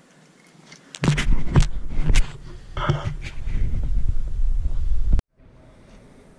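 Loud handling noise on the camera's microphone: low rumbling and rubbing with several sharp knocks. It cuts off suddenly about five seconds in.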